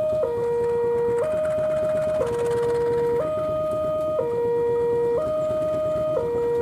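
Two-tone electronic railway warning alarm, alternating a high and a low tone, each held about a second. Under it runs the low rumble of a diesel locomotive moving slowly.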